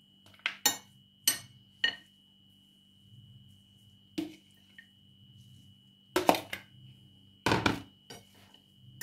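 A metal spoon clinking and scraping against a plastic bowl and a porcelain plate as salad is spooned out. There are a few sharp clinks in the first two seconds and one about four seconds in. Near the end come two longer, louder scraping clatters.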